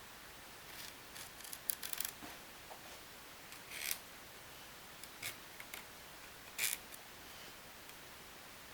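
Small brass clock gears and parts being handled and set down on wood, giving scattered light clicks and clinks with short scrapes, a quick cluster of them about two seconds in.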